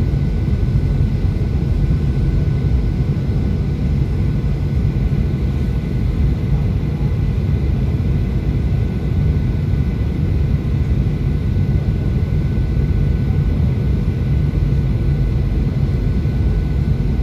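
Steady cabin noise of a Boeing 737-800 on final approach, heard inside the cabin: a low rumble of airflow and the CFM56-7B engines, with faint steady whine tones above it.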